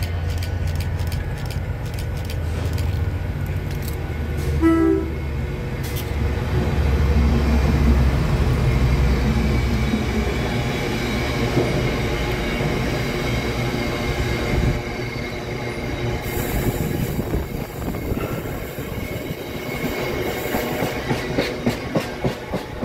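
Diesel freight locomotive hauling oil tank wagons past at close range: a short horn blast about five seconds in, the engine's heavy low rumble loudest as the locomotive goes by, then the tank wagons rolling past with a rhythmic clickety-clack of wheels over rail joints near the end.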